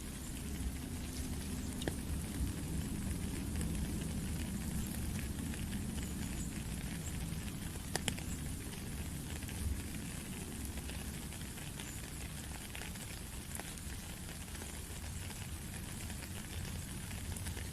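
Steady patter and hiss of water with a low rumble underneath and scattered sharp ticks.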